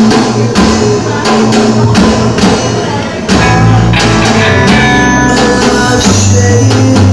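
Live rock band of two electric guitars, bass guitar and drums playing. It opens with a steady drum beat under the guitars, and a little over three seconds in the whole band comes in louder and fuller, heard through a camcorder microphone in the room.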